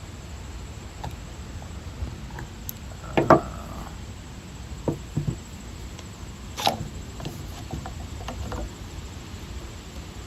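Scattered knocks and clicks of parts of a transfer pump being handled during disassembly, the loudest about three seconds in and another sharp one near the middle, over a low steady hum.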